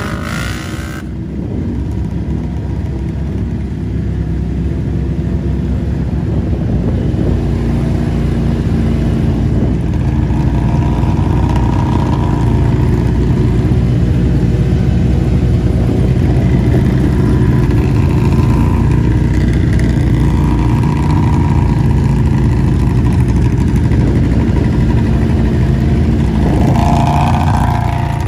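Vehicle engine running loud and steady, revving up several times, with the strongest rev near the end.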